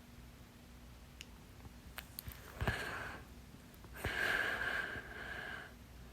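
A person hiccuping: a sharp hiccup about two and a half seconds in, then another about a second and a half later, followed by a breath lasting over a second.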